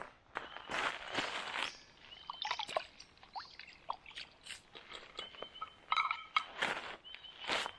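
Footsteps crunching on gravel and water splashing as a camp cup is tipped out into a shallow creek, with a few short bird calls in the background.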